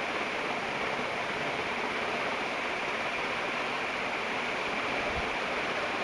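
Canarm CP48 ceiling fan with three metal blades running on full speed, about 280 RPM, giving a steady rush of moving air.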